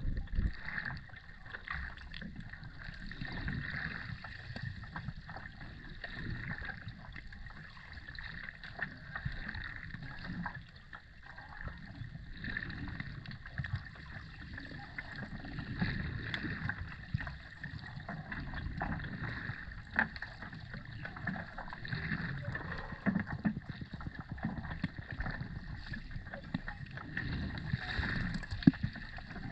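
Underwater ambience: a fluctuating, muffled low rumble of moving water with many faint scattered clicks and crackles.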